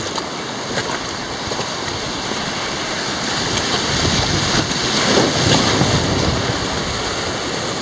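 Rushing whitewater of a mountain river rapid, with waves splashing against the bow of an inflatable raft, loudest about four to six seconds in.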